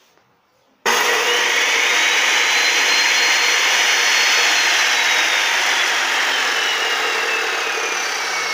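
Makita 2414NB 14-inch abrasive metal cut-off saw switched on about a second in and run free with no workpiece. Its motor whine rises sharply as it spins up, holds high, then slowly falls in pitch from about midway.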